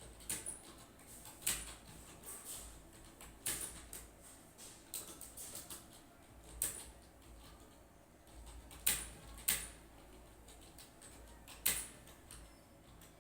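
Computer keyboard keys being typed: sharp clicks at an uneven pace, often a second or more apart, sometimes in short runs, over a low steady hum.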